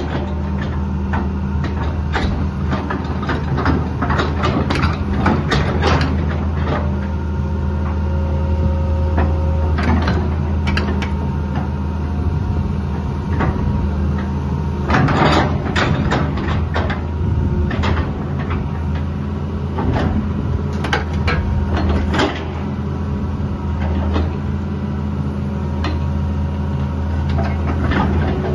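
Hitachi EX200 tracked excavator's diesel engine running steadily while the hydraulics move the boom, arm and bucket, with frequent sharp clanks and knocks from the working machine.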